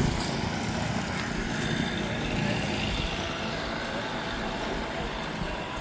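Steady outdoor street noise: an even hiss of background sound with no distinct events, of the kind distant traffic makes.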